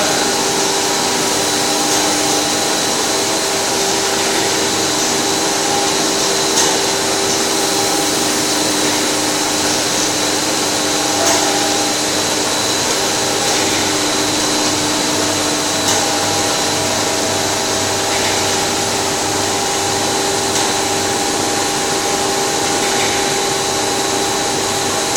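Double-layer plastic sheet co-extrusion line running: a loud, steady mechanical whir of its motors and drives, with several steady tones and a few light clicks.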